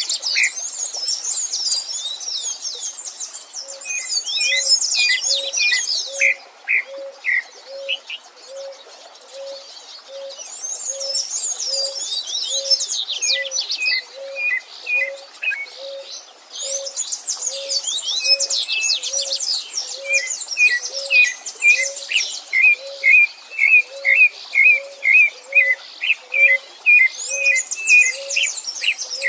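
Several wild birds singing together. Bursts of fast, high twittering come and go, and runs of shorter chirps sit lower down. Beneath them, from a few seconds in, a soft low note repeats evenly about every half second or so.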